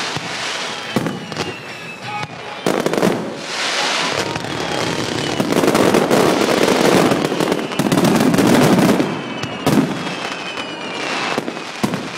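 Fireworks going off in quick succession: sharp bangs, dense crackling and several whistles falling in pitch, over music.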